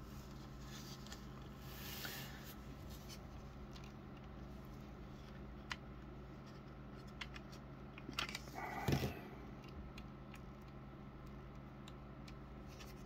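Faint clicks and scrapes of a plastic action figure and toy motorcycle being handled and posed, with a louder knocking, rattling cluster about nine seconds in. A steady low hum runs underneath.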